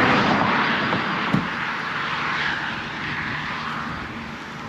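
Steady rushing engine noise of a passing motor vehicle, slowly fading as it moves away, with a brief knock about a second in.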